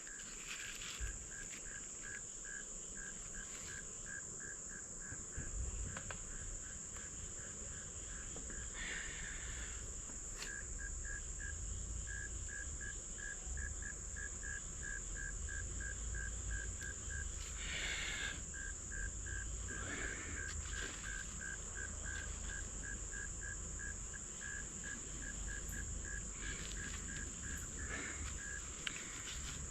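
Evening insects: a cricket chirping steadily at about three chirps a second over a continuous high-pitched insect drone. A few short rushing hisses come in around a third of the way in, past the middle and near the end, over a low rumble.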